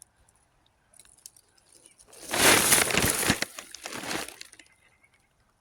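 A loud crunching, crackling rustle starts about two seconds in and lasts about two seconds, with a few sharp cracks in it, then fades away.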